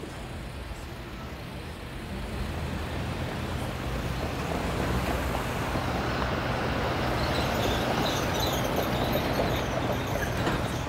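Road traffic passing on a busy street: a steady rush of vehicle noise that grows louder from about two seconds in.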